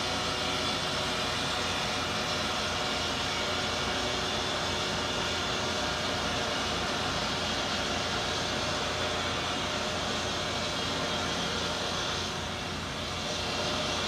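Asphalt-cutting saw running steadily as its blade cuts through the road pavement, a dense whining machine noise that eases briefly near the end.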